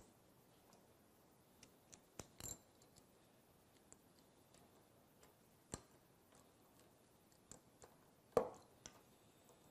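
Faint metallic clicks and clinks of a socket and extension being fitted together by hand, then the socket tool set against a bolt on the diaphragm pump's leg bracket, with a louder knock about eight and a half seconds in.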